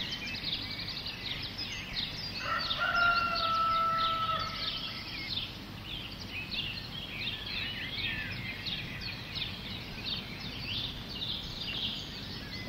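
Outdoor birdsong: many small birds chirping and twittering. About two and a half seconds in, a longer call holds one steady note for two to three seconds.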